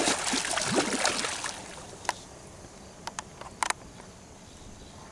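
A hooked tiger musky thrashing at the surface, a burst of splashing that lasts about a second and a half and then dies away. A few sharp little knocks follow.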